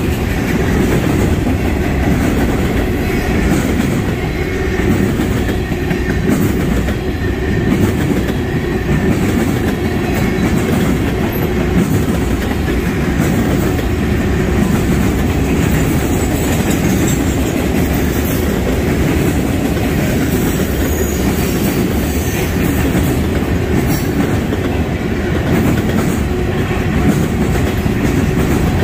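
Freight cars of a Norfolk Southern westbound manifest train rolling past at close range, a steady, loud rolling noise of steel wheels on rail.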